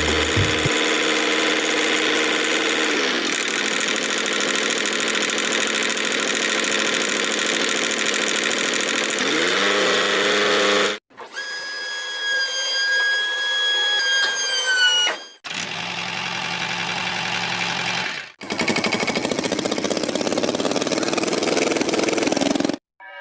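Small motors of a model tractor and machinery running in several short cut clips. First comes a steady hum whose pitch shifts twice, then a high steady whine that drops at its end, then two more stretches of running noise.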